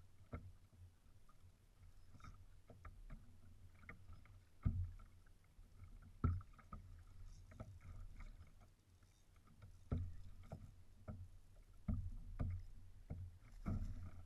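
Irregular knocks and thumps on a fishing kayak's hull, with small clicks in between and a low rumble of water and wind underneath.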